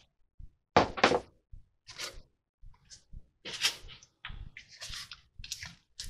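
A balsa model-aircraft wing, part-covered in Solartex, being handled and shifted about on a workbench: irregular rustles and knocks, the loudest about a second in.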